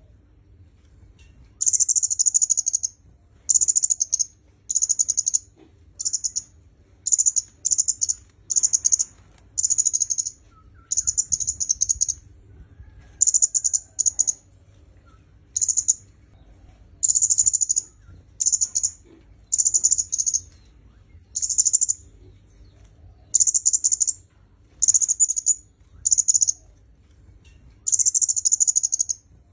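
A kemade kepala merah (red-headed myzomela) singing: short, high-pitched chattering phrases repeated about once a second, with a few longer pauses between bursts.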